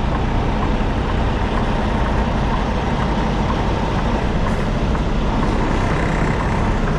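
Semi-truck diesel engine running steadily under a constant rushing noise.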